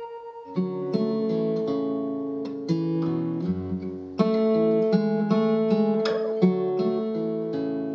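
Background music: a guitar plucking and strumming a run of chords, starting about half a second in.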